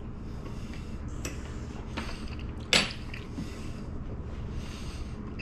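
Quiet kitchen room tone with a steady low hum, broken by a few faint clicks and one sharper click a little under three seconds in.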